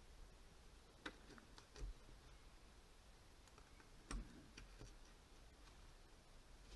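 Faint, scattered clicks of a tiny knife tapping a miniature cutting board as tomato is chopped into small pieces.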